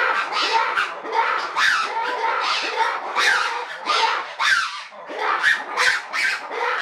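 Black-and-white ruffed lemurs giving their loud roaring call: a rapid run of harsh, raspy squawks and barks that sweep up and down in pitch, with a brief lull about four and a half seconds in.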